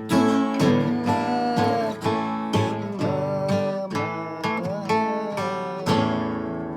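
Acoustic guitar strumming chords in a steady rhythm with a melody line over them. The last chord, about six seconds in, is left to ring and fade.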